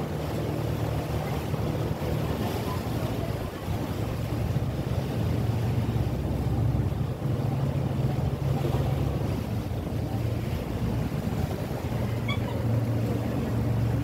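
Boat engine running steadily under way, a low drone with the rush of water and wind over it.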